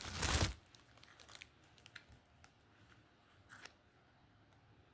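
Plastic packaging crinkling in a short, loud burst at the start, then a few faint rustles and light ticks as it is handled.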